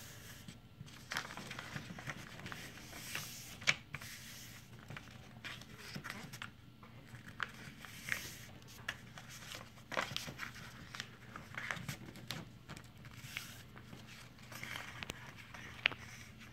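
A sheet of paper rustling and crinkling as hands fold and crease it into a paper airplane, with irregular crackles and short sharp clicks throughout.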